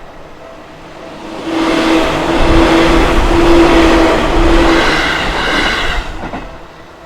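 Seibu Sayama Line electric commuter train passing over a level crossing. It swells about a second and a half in, stays loud for several seconds, and falls away suddenly near the end. The crossing's warning bell keeps dinging steadily underneath.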